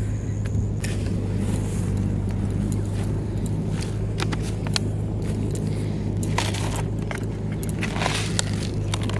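Clicks, taps and scrapes from a plastic bait jar being handled, growing busier in the second half. A steady low hum runs under them throughout.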